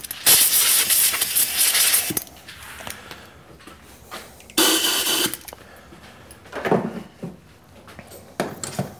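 A loud hissing rush lasting about two seconds, then a second, shorter hiss about halfway through, followed by a few softer handling sounds near the end.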